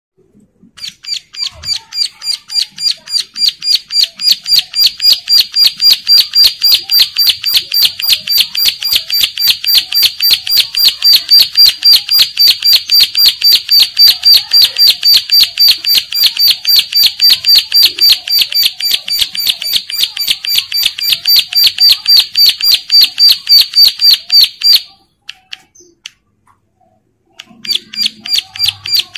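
Caged plain prinia (ciblek sawah) in breeding condition singing a long run of rapid, sharp, high repeated notes, about four to five a second, growing louder over the first few seconds. It breaks off about 25 seconds in and starts again near the end.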